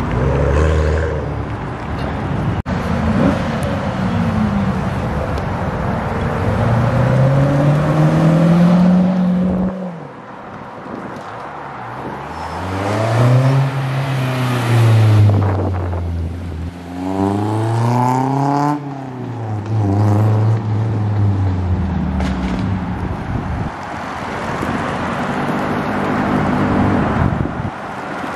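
Sports car engines, among them an Acura NSX and a Honda S2000, pulling away from a car show one after another. Each engine climbs in pitch under acceleration, then drops back. Two sharp rev-ups, each rising and falling, come in the middle.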